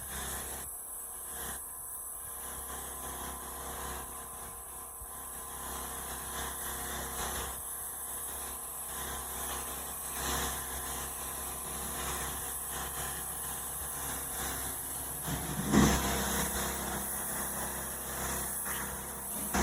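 Petrol pressure washer engine running steadily, with the hiss of the water spray. A brief knock about three-quarters of the way through.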